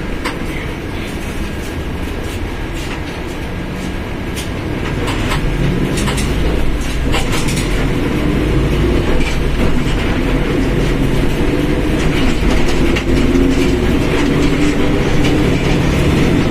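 Mercedes-Benz OF1721 BlueTec 5 bus driving, its engine and driveline droning under scattered rattles and clunks. From about five seconds in it grows louder and rises in pitch as it picks up speed, then holds steady.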